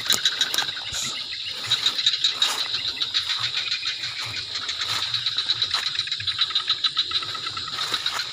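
Insects, crickets or similar, chirring in a steady high-pitched chorus that pulses several times a second.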